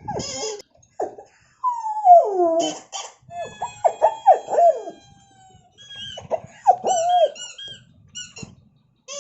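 High squeaks and whines from a squeaky dog toy and a puppy. They come in short pitch-gliding calls, with one long squeal falling in pitch about two seconds in and a cluster of quick arched chirps near the middle.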